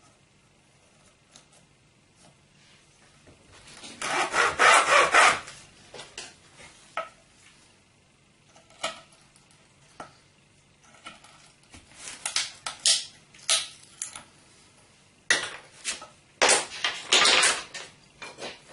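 Small plywood pieces being worked by hand: after a few quiet seconds, short bouts of strokes of a hand tool on wood, the loudest about four seconds in, mixed with light clicks and knocks of wood on a work surface.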